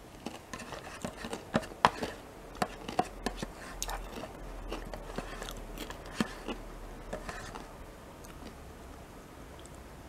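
Close-miked eating of yogurt with crunchy bear-shaped biscuit pieces: irregular crunches and sharp clicks of chewing, loudest about two seconds in and again about six seconds in, dying away after about seven and a half seconds.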